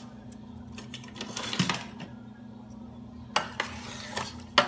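A spoon stirring chicken in thick chile sauce in a large aluminium pot, scraping and knocking against the metal. There is a stretch of clatter about a second in, then a few sharp clinks, the loudest near the end, over a steady low hum.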